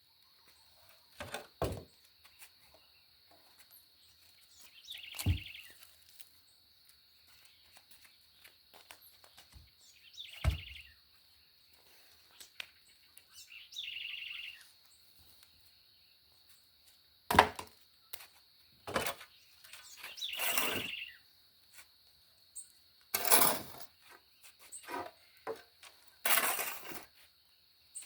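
A shovel scraping and scooping up bonfire ash, with short rasping sweeps and a few dull thuds, spread unevenly, as the ash is shoveled up for a wheelbarrow. Birds chirp briefly every few seconds over a steady high-pitched tone.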